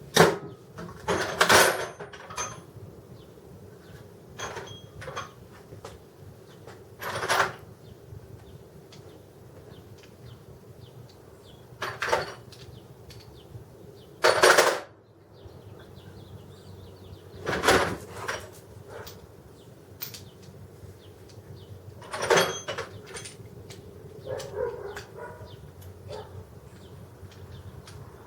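Scattered sharp knocks and clatters, about eight or nine spaced a few seconds apart, over a steady low hum.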